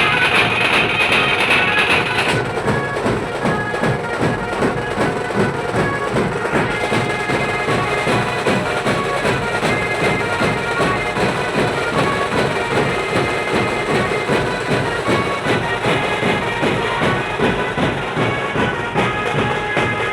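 Indian band-party music: a reedy, pipe-like keyboard melody over a fast, steady drum beat, played loud through a sound system.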